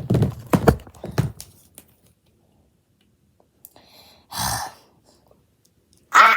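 Handling a Play-Doh tub: a quick run of sharp knocks and clicks through the first second or so, then quiet, with a short rustling burst about four and a half seconds in and a brief vocal sound right at the end.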